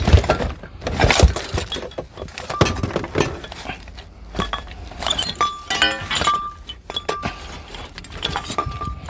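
Glass light bulbs clinking and knocking against each other as they are handled and gathered up, in many sharp clicks and knocks with a few short ringing chinks.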